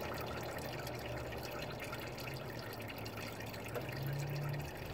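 Used engine oil draining from a VW Golf 3's sump through the open drain-plug hole, a steady trickle pouring into a canister below.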